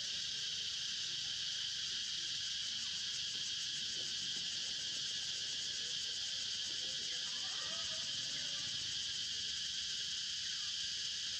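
Steady, high-pitched chorus of forest insects, an unbroken shrill buzz that never lets up.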